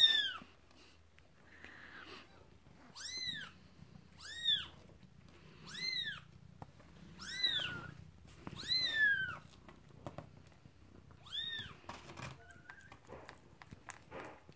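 Newborn kitten squealing for its mother: about six short, high-pitched cries a second or two apart, each rising and then falling in pitch.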